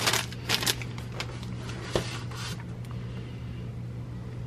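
Plastic snack bag crinkling as it is lifted and handled: a cluster of short crinkles in the first second, a click and more rustling around two seconds in, over a steady low hum.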